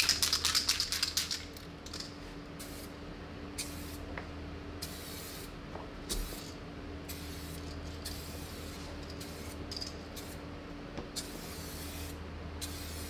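Aerosol can of 2K clear coat, its mixing ball rattling rapidly as the can is shaken for about a second and a half, then a series of short hissing spray passes as a light first coat goes onto headlight lenses.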